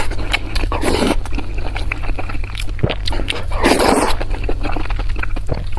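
Close-miked eating sounds: wet chewing and smacking with many small clicks, and two louder bursts, about a second in and about four seconds in.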